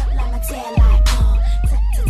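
Loud hip hop dance track with a heavy bass and drum beat; the bass drops out briefly and comes back on a hard hit about three-quarters of a second in.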